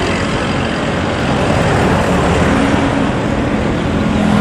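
Steady engine and traffic noise, with a low engine drone that grows stronger about two and a half seconds in.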